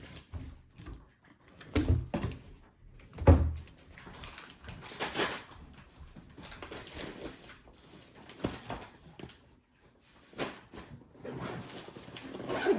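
Household handling noises: a few scattered knocks and thumps, the loudest about three seconds in, with rustling and small clatters between.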